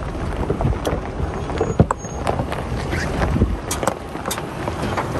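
Pickup truck driving slowly over a rocky dirt trail: a low rumble with scattered crunches, pops and knocks of stones under the tyres, and wind on the microphone.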